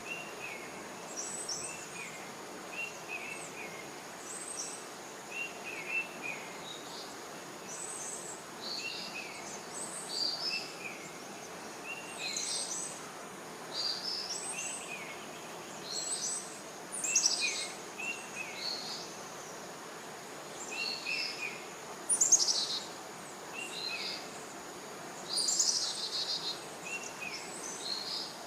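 Songbirds chirping and singing in short phrases that repeat every second or two, a few of them louder and busier, over a steady background hiss.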